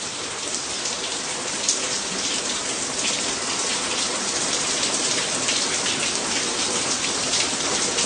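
Water from a burst, freeze-damaged pipe streaming and dripping through a collapsed ceiling onto kitchen counters and the floor, a steady splashing.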